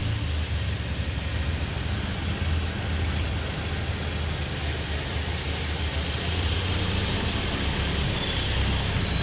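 Mini Cooper S Countryman's turbocharged four-cylinder engine idling steadily with the car at a standstill, a constant low hum.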